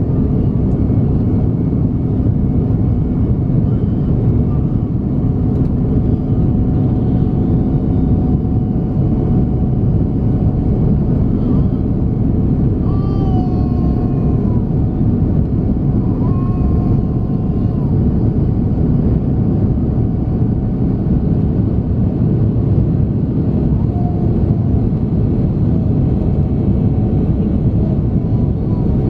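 Rolls-Royce Trent 7000 engines of an Airbus A330neo at climb power after takeoff, heard inside the cabin as a steady deep rumble with a thin steady whine above it.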